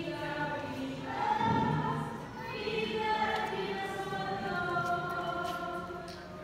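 A group of voices singing together in a choir, holding long notes.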